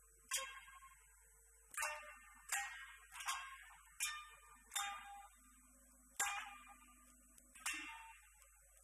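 Traditional Japanese koto music: single plucked notes, about one every three-quarters of a second, each ringing out and fading before the next.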